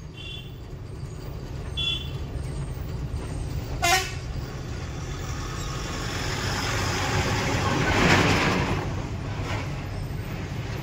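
Truck engine running steadily in low gear on a steep downhill, heard from inside the cab. A few short horn toots come in the first four seconds, and a rush of noise swells up about eight seconds in.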